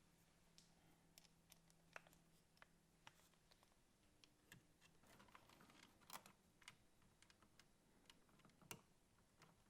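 Near silence with faint, scattered small clicks and knocks, and a faint steady low hum for the first few seconds.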